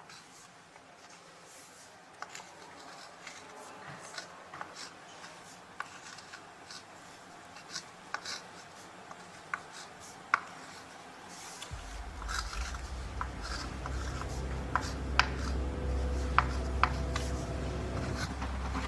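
Scratching and tapping of a pen or marker writing, in short irregular strokes. From about twelve seconds in, a low drone comes in under it and grows steadily louder.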